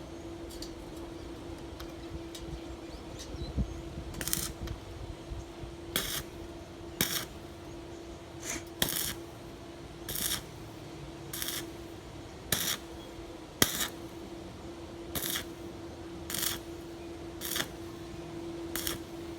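Welding work on metal: about a dozen short hissing, crackling bursts, each well under a second, coming roughly once a second, with a sharp click about two-thirds of the way in, over a steady hum.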